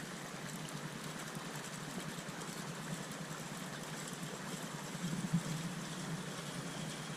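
Spinning fishing reel cranked steadily, winding new monofilament line onto its spool, over the steady rush of a river.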